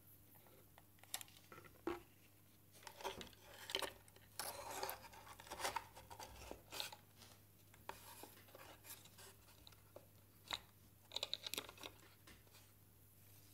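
Hands handling wires, connectors and plastic parts inside a DIY speaker enclosure: scattered small clicks, taps and rustles, with a faint steady hum underneath.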